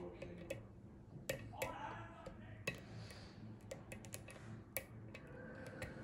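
Scattered small sharp clicks, irregular and a few a second, of a lock pick and tension wrench working the pins inside a Russwin Emhart lock cylinder.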